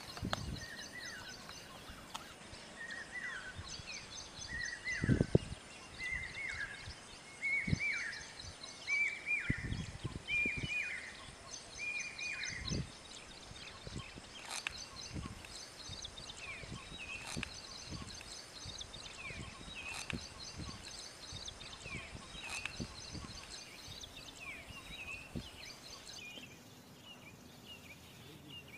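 Outdoor ambience with small birds chirping: a repeated short falling chirp about once a second through the first half, then scattered quicker chirps, with a few low thumps.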